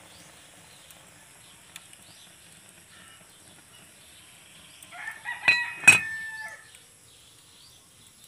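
A rooster crows once, about five seconds in, lasting under two seconds, with two sharp knocks sounding during the crow.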